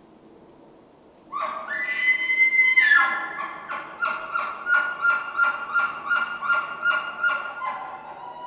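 Elk bugle: a call that starts about a second in, climbs into a high, steady whistle, then breaks into a long run of rhythmic chuckles, about three a second, that fade near the end.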